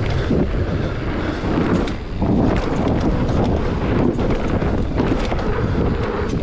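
Wind rushing over the microphone with the rumble and rattle of a mountain bike riding fast over a rough, muddy trail, with many small knocks from the bumps.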